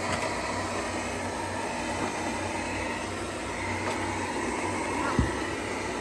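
SereneLife Pure Clean robot vacuum running: a steady whir of its suction motor and brushes over a low hum, with a single low thump about five seconds in.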